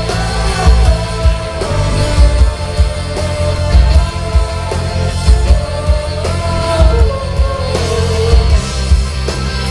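Live rock band playing loudly through a PA system: electric guitars, bass and drums, with a steady, heavy beat.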